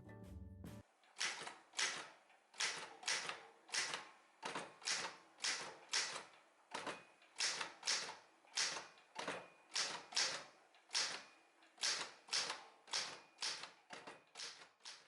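Background music stops about a second in. Then a 1960s Olympia SG-1 manual office typewriter is typed at an even pace, about two sharp keystrokes a second, each typebar striking the platen.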